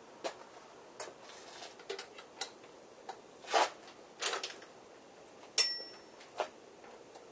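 Irregular clicks, knocks and clinks of hand tools and metal parts being handled. One sharp metal clink about five and a half seconds in rings briefly.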